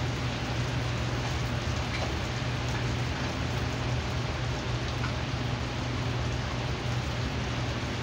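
Heavy rain pouring onto a paved parking lot and parked cars, a steady, even hiss, with a steady low hum underneath.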